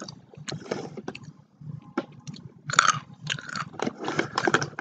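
A person chewing crunchy food right at the microphone: irregular crunches and wet mouth clicks.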